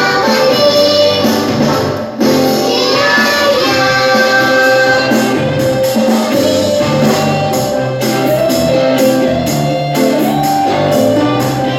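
A children's song playing, with singing over an upbeat accompaniment and a steady percussion beat; the sound drops out for a split second about two seconds in.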